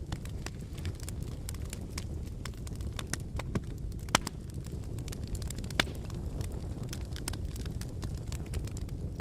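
Fire crackling, with irregular sharp pops over a steady low rumble of burning flames; two louder pops come about four and six seconds in.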